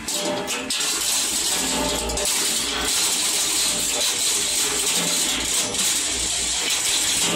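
Hammer mill running with metal replacement hip, knee and shoulder joints (titanium, stainless steel, cast metal and aluminium) being battered inside it against a fitted screen: a dense, continuous metallic clatter of many small impacts over the steady run of the machine.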